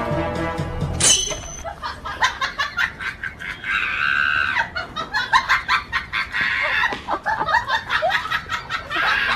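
Background music cuts off about a second in. After that come chickens squawking and clucking in quick, agitated bursts, with a few longer squawks.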